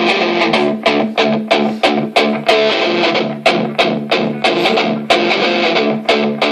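Instrumental stretch of a song: guitar-led music over a steady beat of about three strokes a second.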